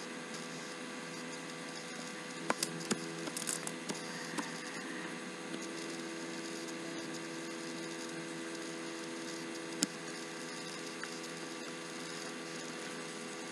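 Steady electrical hum, with a handful of faint clicks between about two and four and a half seconds in and one more near ten seconds.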